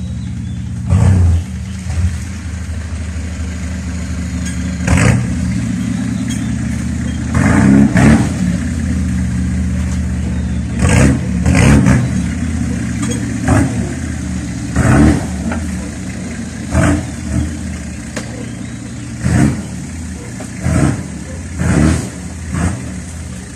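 1967 Ford Fairlane 500's engine idling steadily, with about a dozen short throttle blips that rev it up and drop back.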